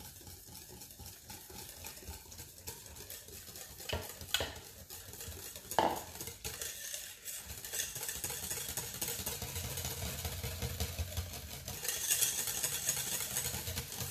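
Wire whisk beating a thin, liquid cheesecake base in a stainless steel bowl, the wires rapidly scraping and clattering against the metal. A few sharper clinks come in the first half, and the whisking grows louder and busier in the second half.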